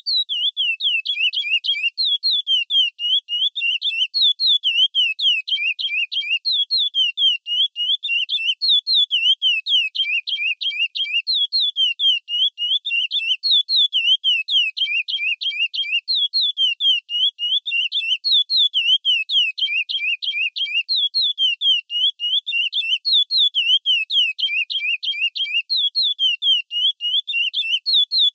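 Chestnut-bellied seed-finch (curió) singing the 'Praia Clássico' song type: a fast run of clear whistled notes, each sliding down in pitch, repeated phrase after phrase with almost no pause.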